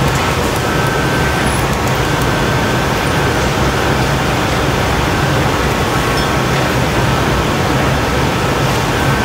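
Steady, loud roar of a glassblowing hot shop's gas-fired furnace and glory hole burners and their blowers, with a low hum underneath.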